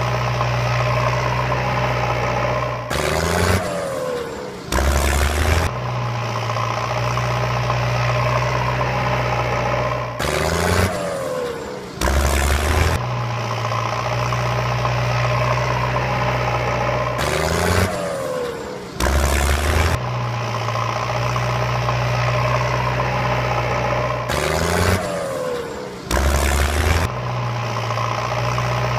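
Dubbed vehicle engine sound effect running steadily, broken about every seven seconds by a couple of seconds of revving with a falling whine, the same stretch repeating as a loop.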